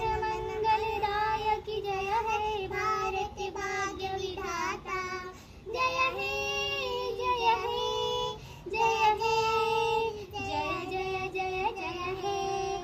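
Children singing together in unison with a woman's voice among them, a slow melody in phrases with long held notes.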